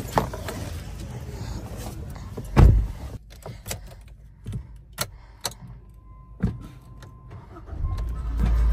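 Car sounds: a heavy car-door thump about two and a half seconds in and several sharp clicks, a brief steady beep, then a low engine rumble building near the end.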